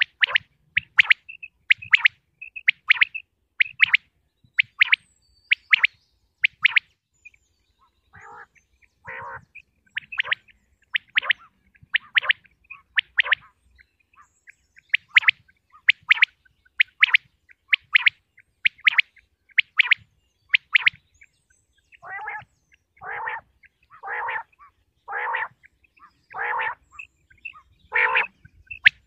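Common quail calling over and over: short, sharp high notes in quick groups. Lower, rougher calls come in around eight seconds in and again, about one a second, through the last third.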